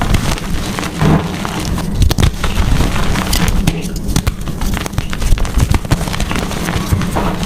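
Blocks of gym chalk being crushed and crumbled, a dense, continuous run of crunching crackles.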